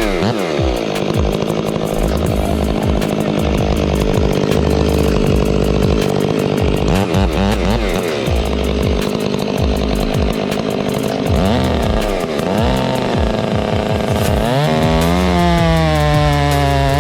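Chainsaw running at high revs while cutting through a tree trunk. Its pitch drops and climbs again several times as the chain loads up in the wood.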